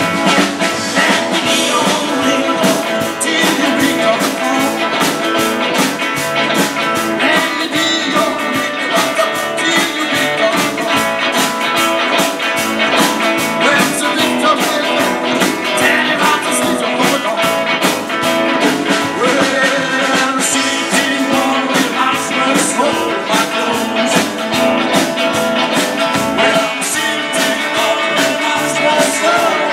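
Live band playing on stage: electric and acoustic guitars, upright double bass and drum kit, with a steady drum beat.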